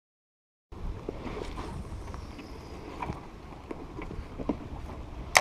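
After a brief silence, wind buffeting a camera microphone in a steady low rumble, with scattered knocks and rubbing from the camera being handled, and one sharp click near the end.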